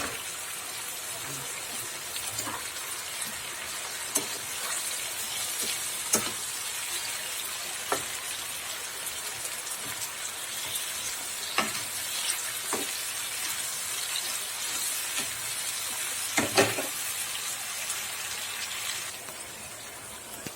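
Chicken, broccoli and tofu stir-fry sizzling in a pan, with a few sharp knocks of the utensil against the pan as it is stirred, the loudest a pair about three-quarters of the way through. The sizzle drops a little near the end.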